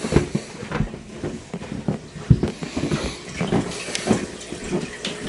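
Irregular soft thumps and rustling of someone walking through a house, footsteps mixed with the handling noise of a hand-held camera.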